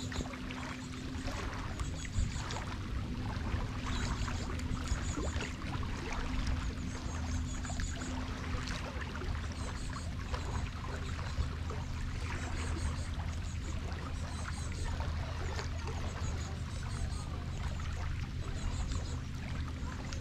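Rain falling and spattering steadily around a jetty, with water lapping and dripping, over a steady low hum.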